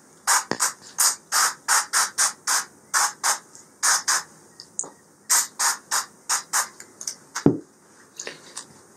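Avocado oil sprayed onto raw chicken in quick short hissing spritzes, about three a second, in two runs with a brief pause halfway. A single light knock near the end.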